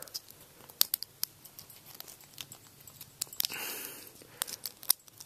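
Small scattered clicks and ticks of plastic utensils and tiny orthodontic rubber bands being handled, with a brief soft rustle about three and a half seconds in.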